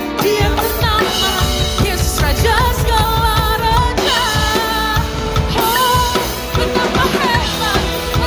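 Drum kit played along to a pop-style worship song with a singing voice, at a steady beat of about 151 beats per minute.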